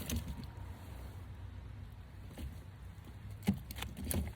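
Handling noise aboard a kayak: a few short knocks and clunks, the loudest about three and a half seconds in, over a low steady rumble.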